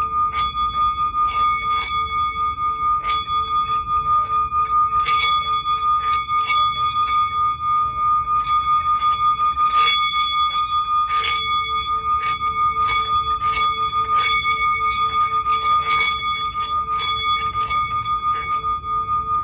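Singing bowl ringing with one steady tone and higher overtones, wavering rapidly in loudness, with a lower tone that fades out for a few seconds mid-way and returns. Frequent soft clicks sound over the ring.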